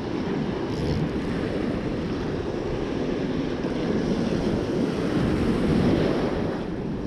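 Rough surf breaking and washing up the beach, with wind buffeting the microphone; the surf swells a little louder about five to six seconds in.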